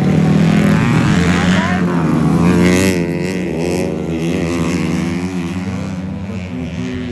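Racing motorcycle engines running and revving around a dirt track, with pitch rising and falling as the bikes accelerate and brake; loudest about three seconds in, then slowly fading.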